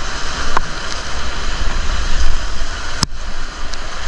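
Rushing river water with wind buffeting the microphone, and a sharp knock about three seconds in.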